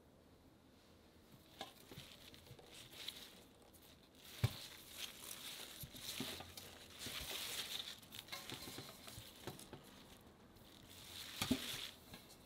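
Leafy radish tops rustling as hands handle a bunch of Korean radishes (dabal-mu) in a stainless steel bowl, with a few knocks, the loudest about four and a half seconds in and another near the end.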